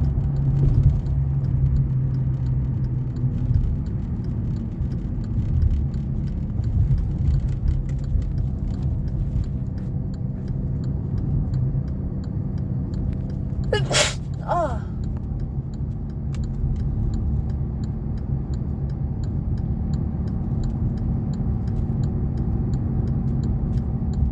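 Steady low rumble of a car's engine and road noise inside the cabin while driving, with one loud sneeze about halfway through from a person with a cold.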